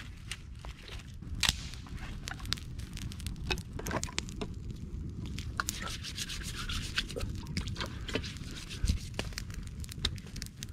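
A hand brushing and rubbing across the face of a rock around the middle, over scattered sharp clicks and crackles from a wood campfire.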